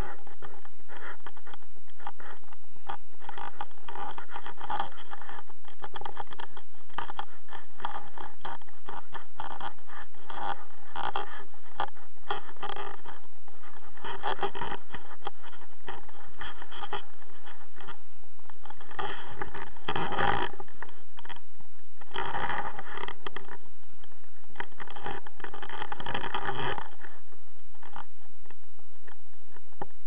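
Muffled, irregular rustling and scraping from a harness-mounted camera rubbing against the pilot's jacket and harness as he moves, with several louder stretches in the second half.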